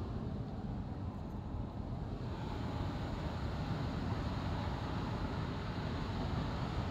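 Road and tyre noise heard inside a moving car's cabin: a steady low rumble, with a higher hiss coming up about two seconds in.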